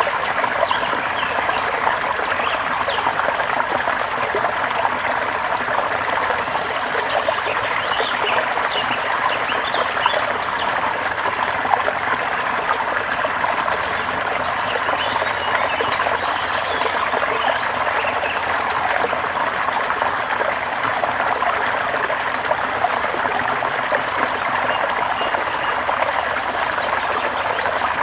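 Flowing water from a forest stream or small waterfall, a steady rushing trickle with short faint high chirps here and there.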